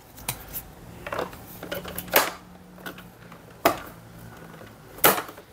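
Sharp plastic clicks and knocks as a battery pack is handled and pressed into the battery bay of a Samsung Jet Bot robot vacuum. There are a few spaced-out loud clicks, the last near the end.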